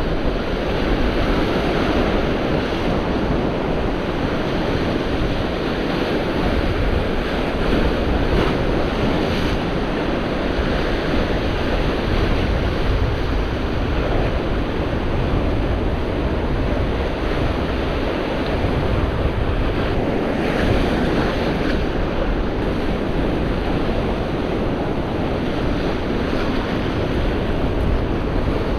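Sea surf washing and breaking against a rocky shore in a steady wash, with wind buffeting the microphone as a low rumble.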